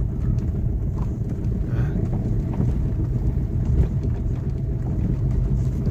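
Car driving slowly over a rough dirt road, heard from inside the cabin: a steady low engine and tyre rumble with a few light knocks.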